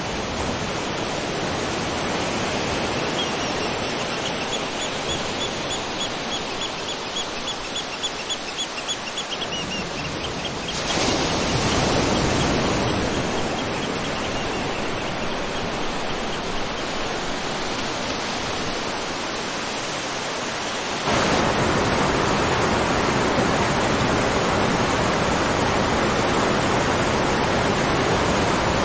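Waterfall: falling water rushing steadily. The water noise jumps abruptly louder and fuller twice, about eleven and twenty-one seconds in. A faint, high, rapidly pulsing trill sounds over it for several seconds near the start.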